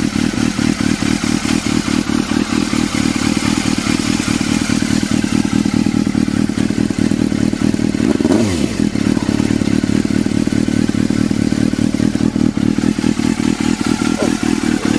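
Yamaha FZR400 inline-four engine idling through a Laser aftermarket exhaust, given one brief blip of the throttle about eight seconds in that falls back to idle.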